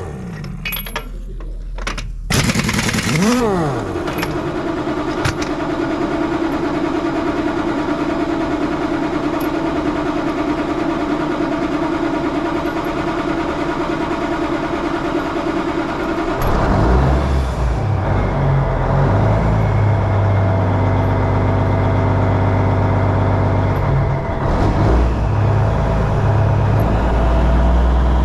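Machinery running with a steady hum, after a couple of brief rises and falls in pitch near the start. About two-thirds of the way through, a heavy engine comes in with a low rumble and runs on steadily at idle.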